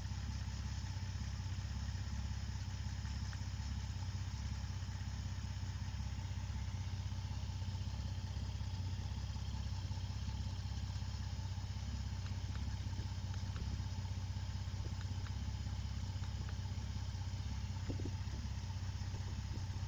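Vauxhall Senator's C30NE 3.0-litre straight-six engine idling steadily with an even low rumble, with a few faint ticks near the end.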